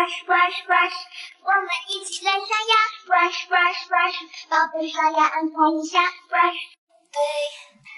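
A child's high-pitched voice singing quick, short syllables, with no clear instrumental backing; it breaks off briefly about seven seconds in.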